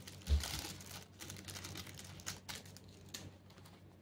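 Thin plastic packaging bags crinkling as they are handled, with a dull bump about a third of a second in and a few light clicks after.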